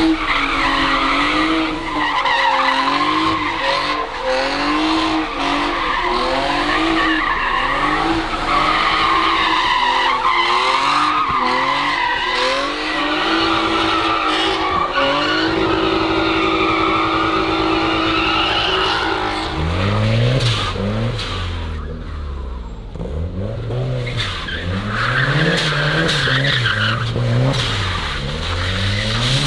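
Car drifting in circles on wet asphalt: the engine revs hard, its pitch swinging up and down, with tyre squeal over it. Partway through, the engine holds one high note for a few seconds. Near two-thirds of the way in, it changes to a much deeper note that rises and falls more slowly.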